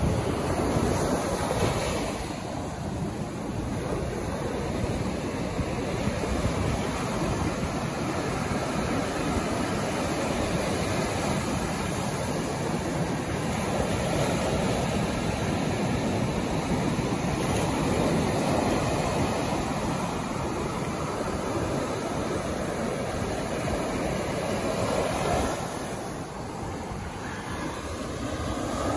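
Ocean surf breaking and washing up the sand in a steady rush, easing briefly near the end.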